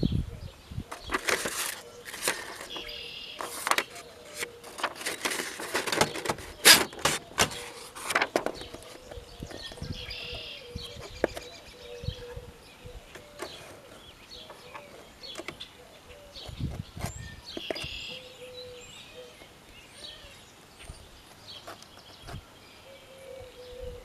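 A run of sharp knocks and short rustling noises over the first eight seconds or so, then a quieter stretch with small birds chirping now and then in the background.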